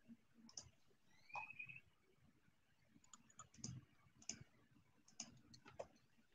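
Faint, scattered clicks of a computer mouse and keyboard, about a dozen spread irregularly, with a brief high rising chirp about a second and a half in.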